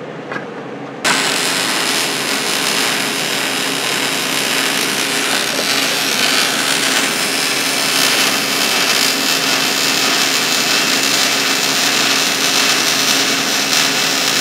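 MIG (gas metal arc) welder in short-circuit transfer, running a weld along a 14-gauge steel lap joint: the arc strikes about a second in and then runs steadily.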